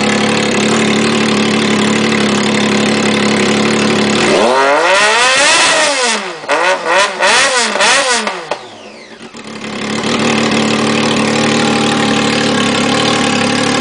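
Triumph Daytona 675's inline three-cylinder engine running with the muffler removed: idling, then revved up hard about a third of the way in and blipped several times in quick succession, before dropping back and settling to idle again.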